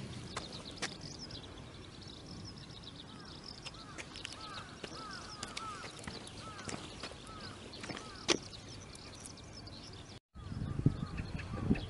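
Small birds calling in quick series of short chirps against a steady outdoor hiss, with scattered sharp clicks of footsteps and a small dog's steps on wet asphalt. The sound drops out for a moment near the end, and louder rustling steps follow.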